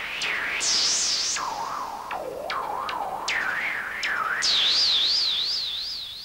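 Electronic synthesizer tones: several sharp downward swoops, each settling into a fast, wide warble of about three wobbles a second, jumping between high and middle pitches. The last, highest warble starts at about four and a half seconds and fades out near the end.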